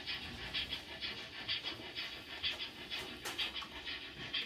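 Model steam locomotive's sound decoder playing steam chuffs through its small speaker, an even beat of about two chuffs a second, with one sharp click about three seconds in.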